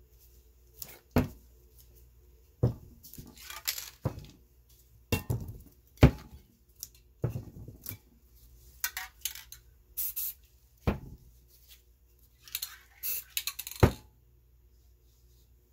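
Close, sharp clicks and knocks of a painting tool and objects on a hard painting surface, about half a dozen loud ones, with short scratchy scraping passes between them.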